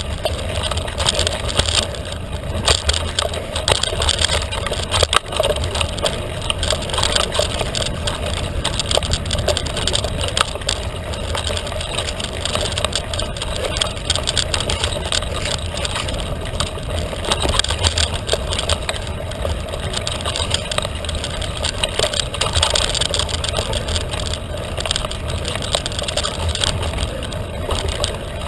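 Felt carbon 29er mountain bike ridden at speed on a dirt trail: continuous tyre and drivetrain noise with many small rattles, clicks and knocks from the bumps, over a low rumble.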